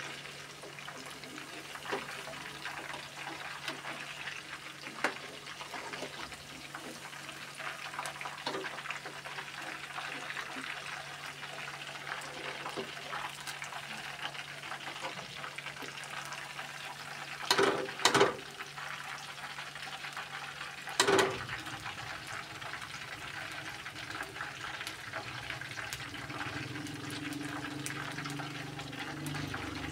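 Chicken pakoras deep-frying in hot oil in a karahi: a steady bubbling sizzle. A few loud knocks come in the middle, where a metal slotted skimmer stirs the pakoras and lifts them out.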